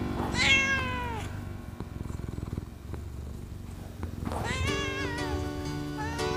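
Ragdoll cat meowing over a backing music track: one long meow falling in pitch, a low purring stretch, then a wavering meow near the end as held low notes of the music come back in.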